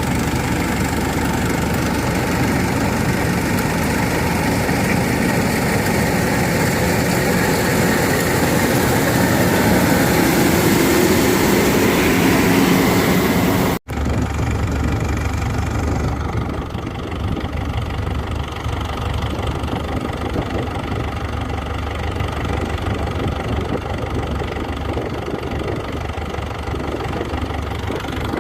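Kubota DC93 combine harvesters' diesel engines running steadily while harvesting. About halfway through, a cut breaks the sound, and after it the machine noise is duller and lower.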